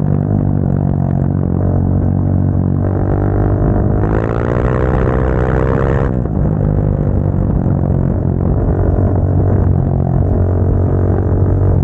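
Motorcycle engine running steadily. About four seconds in the revs climb under acceleration, then drop back roughly two seconds later.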